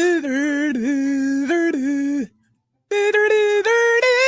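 A single man's voice singing a pop-song melody wordlessly, with the tongue flapping in a "tongue choir" imitation. The held notes wobble rapidly and step between pitches, and it pauses briefly a little past two seconds in before starting again.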